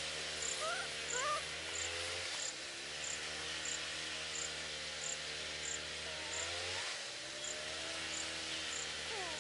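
Insects in the grass: a high, short chirp repeating evenly about twice a second over a steady insect hiss, with a low hum that rises and falls underneath.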